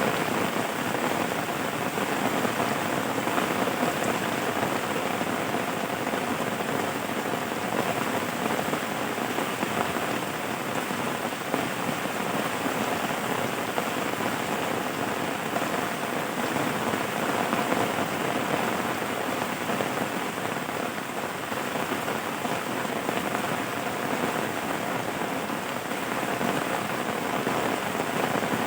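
Rain falling steadily, an even patter of drops without a break.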